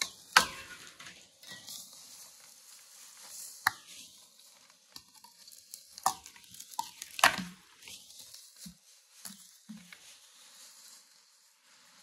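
Packing material being cut and pulled off a new bicycle: plastic wrap and cardboard rustling and crinkling, broken by a few sharp snaps and clicks, with a few soft knocks of parts being handled.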